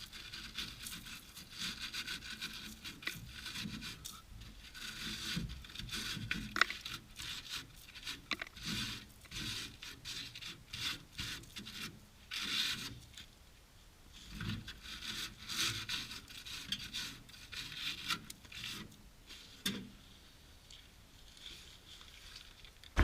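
Saw cutting through the rusted sheet-steel underbody pan of a 1970 VW bay-window bus, in short, irregular strokes with brief pauses.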